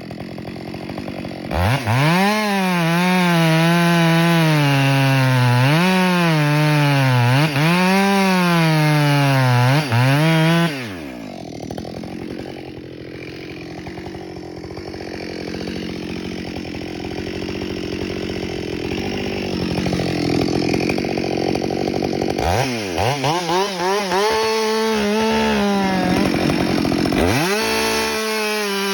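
Ported Husqvarna 572XP chainsaw cutting oak at full throttle, its pitch rising and falling as the chain loads in the cut and recovers. It then eases off for about ten seconds before revving up again twice near the end.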